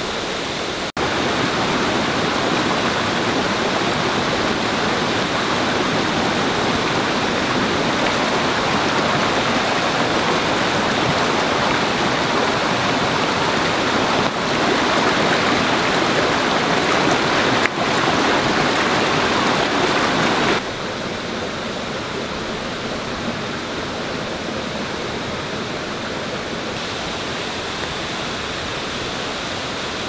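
Waterfall rushing steadily: a dense, even noise of falling water. Its loudness jumps abruptly a few times, rising about a second in and dropping sharply about two-thirds of the way through.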